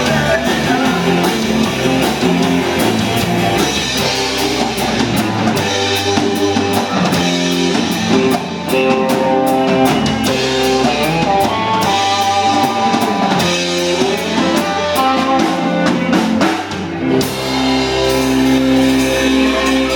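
Live rock band with electric guitars and a drum kit playing the closing section of a song. Near the end the drums and cymbals stop, leaving a held chord ringing.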